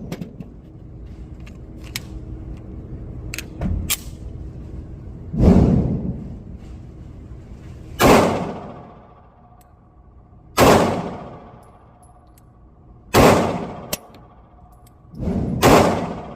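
9mm pistol fired five times at a slow, even pace, about two and a half seconds apart, each shot trailing off in a short echo. A few fainter sharp cracks come a little before the first shot.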